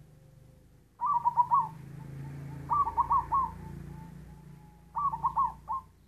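Zebra dove (perkutut) cooing in three short phrases of four to five quick notes each: about a second in, around the three-second mark and near the end. The song is halting and broken, which the keeper calls coughing and stuttering.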